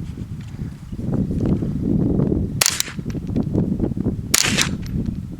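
Two sharp .22 rimfire rifle shots from a Ruger 10/22 semi-automatic, about two seconds apart, each with a brief ringing tail. A steady low rumble runs beneath them.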